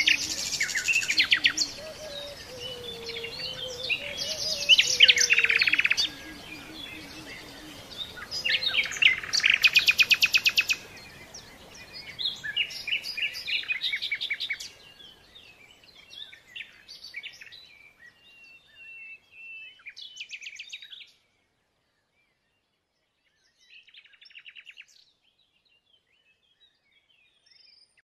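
Songbirds singing in loud bursts of rapid trills and chirps over a faint steady rush of flowing water. The whole track fades out, going silent about three-quarters of the way through apart from one faint late trill.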